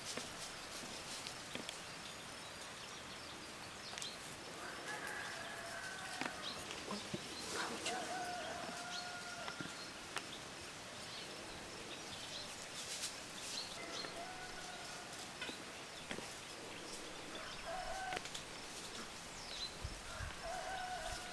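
Chickens calling in the background, several drawn-out calls of about a second each, with small birds chirping in between.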